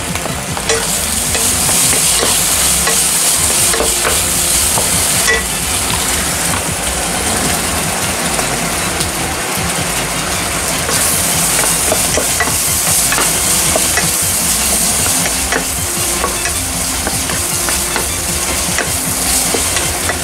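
Manganji peppers, eggplant and crumbled hamburger sizzling in a frying pan as they are stir-fried with a wooden spatula, the sizzle growing louder about a second in. Small scrapes and taps of the spatula against the pan sound through it.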